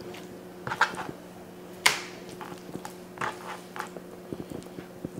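Chef's knife slicing through raw boneless pork loin and knocking on a plastic cutting board: a few separate cutting strokes, the loudest about two seconds in, then a run of small clicks near the end, over a faint steady hum.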